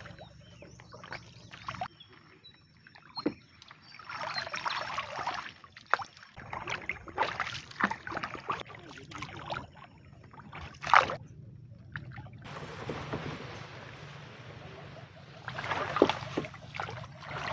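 Paddle strokes swishing and splashing as a narrow wooden canoe is paddled through water hyacinth, with a few sharp knocks, the loudest about eleven seconds in. Toward the end there is a steady hiss, as of the boat brushing into tall grass at the bank.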